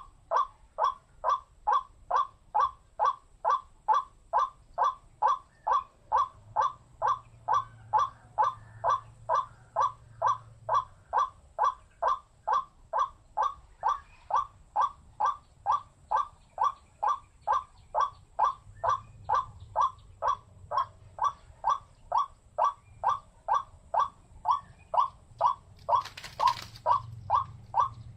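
White-breasted waterhen calling its harsh 'wak' note over and over, very evenly, about two calls a second, with a brief burst of noise near the end.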